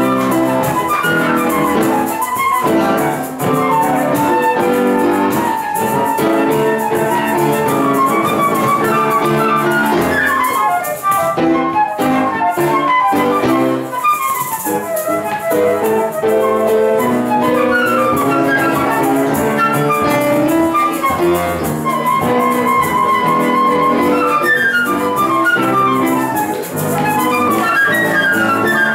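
Transverse flute and piano playing a choro, the flute carrying a quick melody of fast running notes over the piano's chordal accompaniment.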